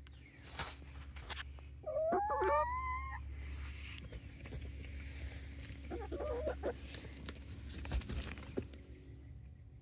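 Young Barred Plymouth Rock hens calling close up: a drawn-out rising call about two seconds in, then a few short clucks around six seconds, with feather rustling and a brief flutter of wings near the end.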